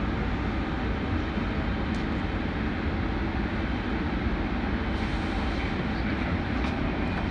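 Steady rumble and hum of a Kinkisharyo P3010 light rail vehicle, heard from inside its cab, with a faint click about two seconds in and another near the end.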